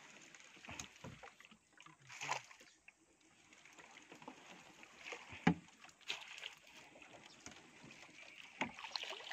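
Small boat moving through shallow water: water sloshing and splashing against the hull, with scattered knocks and one sharp knock about five and a half seconds in.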